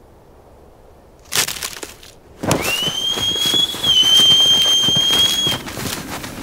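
A sudden loud bang about a second in, then a shrill whistle that rises and is held for about three seconds over the quick footsteps of several people running through dry grass.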